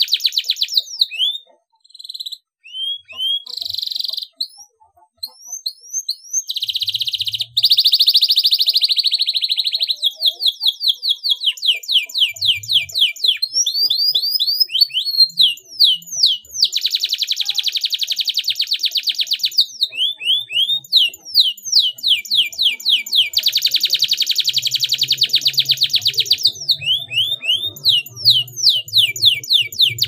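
Domestic canary singing: long, very fast trills of rapidly repeated high notes alternating with runs of quick down-slurred whistled notes, with a few short breaks in the first few seconds.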